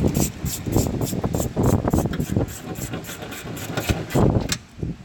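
Hand ratchet wrench clicking in quick, regular strokes while 7/16 nuts are run down onto their studs. The clicking stops about half a second before the end.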